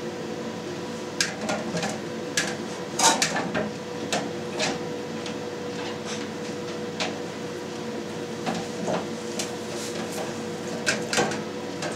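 Handling clatter: a plastic press weight and cheese mould knocking against a stainless-steel water bath and pans as they are lifted out, about a dozen separate knocks and clicks, loudest about three seconds in, over a steady hum.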